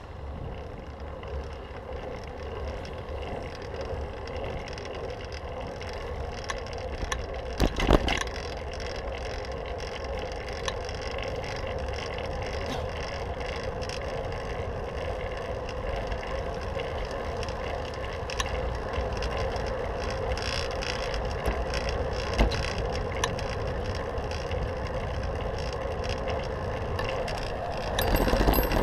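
Wind and road noise from a fixed-gear bicycle on the move, picked up by a camera on the handlebars, with a steady hum that grows gradually louder. A sharp jolt comes about eight seconds in, a smaller knock later, and a brief surge near the end.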